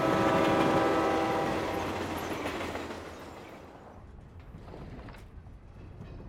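Train horn sounding as a train runs past over a viaduct, with the rushing rumble of the train. Horn and rumble fade away over about four seconds, leaving a low rumble.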